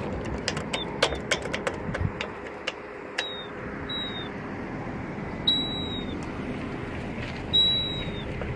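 Campbell accessible pedestrian signal push button's speaker giving short high chirps that slide slightly downward, spaced unevenly with a couple of longer ones, among sharp clicks. The failing, dying-sounding output of a worn crosswalk button speaker.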